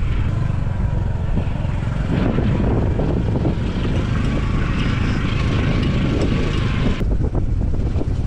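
Small motorcycle running at riding speed while carrying three people, under heavy wind rumble on the microphone, with a faint steady engine whine. The sound changes suddenly near the end.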